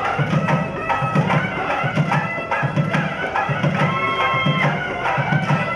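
Instrumental passage of devotional bhajan music: a reedy, held-note melody over a steady drum beat of about two strokes a second.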